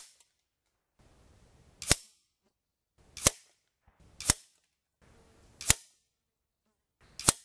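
Five sharp cracks from .22 pellet shots of an FX Whisper PCP air rifle at a paper target, heard from beside the target, spaced one to one and a half seconds apart, each with a brief ring.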